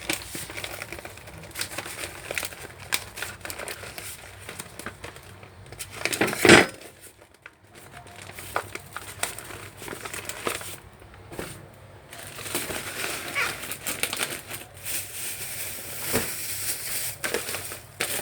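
Paper crinkling and rustling in irregular handling noises as vegetables are wrapped in it, with one louder rustle about six and a half seconds in.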